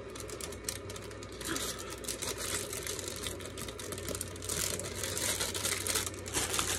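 Packaging rustling and crinkling as craft items are handled and packed away, a fast run of small rustles and clicks that gets busier in the second half.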